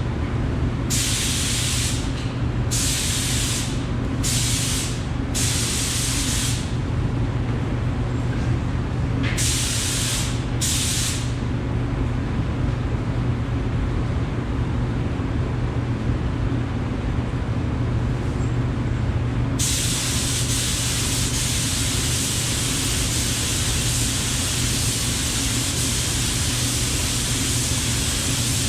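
Gravity-feed paint spray gun spraying epoxy primer: compressed air hissing in short trigger pulls, about eight in the first eleven seconds, then after a pause a continuous hiss from about twenty seconds in. A steady low hum, from the booth's exhaust fan, runs underneath.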